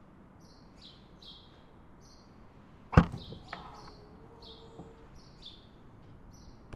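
Toyota 4Runner's rear liftgate unlatching with one sharp clunk about three seconds in, followed by a lighter click as it swings open. A bird chirps repeatedly throughout, short falling notes about twice a second.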